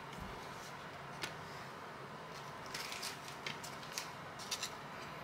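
Faint rustling and a few light clicks of a trading card being slid into a plastic card sleeve.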